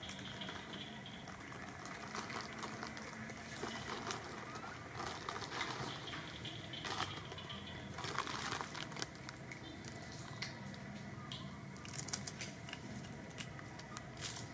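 Scattered rustling and crackling clicks, thickest in the middle and again near the end, over a faint steady hum of outdoor background.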